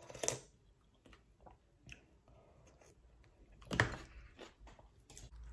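A short slurp of hot broth from a spoon at the start, then soft chewing and small mouth clicks, with a sharp knock about four seconds in.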